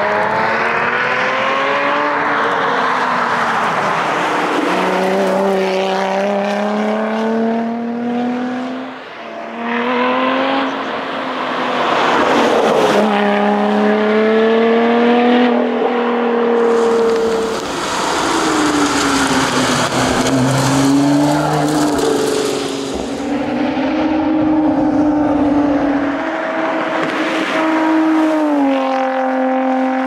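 Lotus Exige 410 Sport's supercharged 3.5-litre V6 driven hard past the roadside. The revs climb and drop repeatedly through gear changes across several separate passes.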